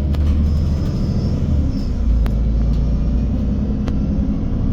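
MAN Lion's City EfficientHybrid CNG bus's engine running under load, a steady deep rumble heard from inside the bus. A few sharp clicks or rattles cut through it, one near the start, one about two seconds in and one near four seconds.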